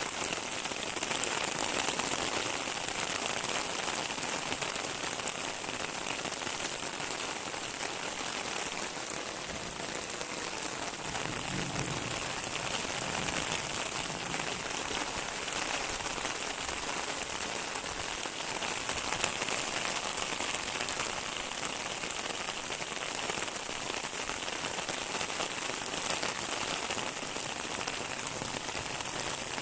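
Steady rain falling and pattering on surfaces, a dense even hiss of drops, with a faint low rumble about twelve seconds in.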